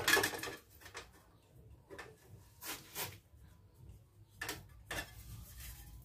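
Hand-handling clicks and knocks of small parts: a louder clatter at the start, then single sharp knocks about a second apart, with two more near the end.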